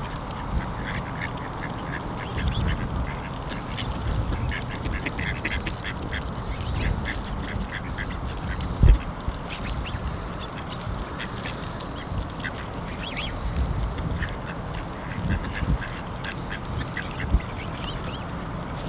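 Mallard ducks quacking repeatedly over a low rumble, with one thump about nine seconds in.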